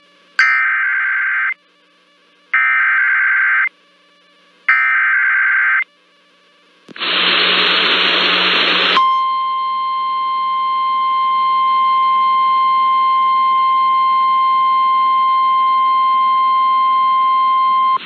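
NOAA Weather Radio Emergency Alert System activation: three one-second bursts of SAME header data tones, a two-second burst of noise, then the steady Warning Alarm Tone held for about nine seconds. Together they signal that a warning broadcast follows.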